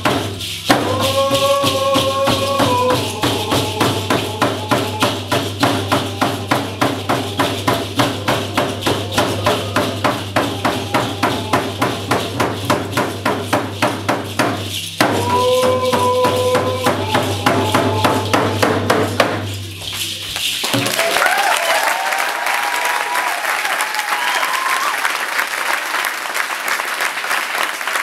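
Coast Salish hand drums beaten in a steady beat of about three strokes a second, under men singing a traditional song with long held notes. The drumming and song stop about 20 s in, and the crowd breaks into applause with a few whoops.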